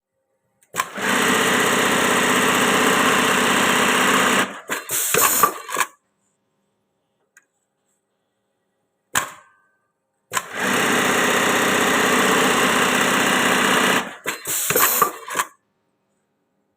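Industrial Reece-type keyhole buttonhole machine sewing denim jeans. It runs through two full cycles, each a steady high-speed stitching run of about three and a half seconds ending in a few short stops and bursts, with a brief mechanical sound in between.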